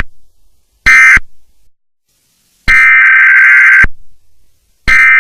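Emergency Alert System SAME data bursts, harsh buzzing digital tone packets. A short burst about a second in closes the end-of-message sequence. Two longer header bursts follow, starting the next alert.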